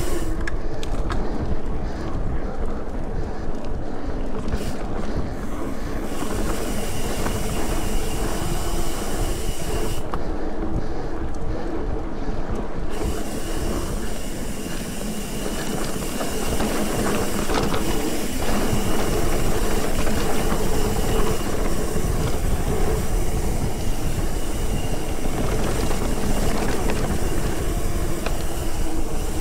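Steady rushing and rumbling noise of moving along at speed, with a low drone and a faint high whine that comes and goes.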